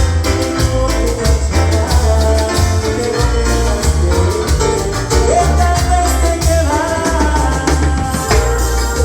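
Live Latin tropical dance-band music: a steady, rhythmic bass and percussion groove under pitched instruments and singing, with a note that slides up and is held about five seconds in.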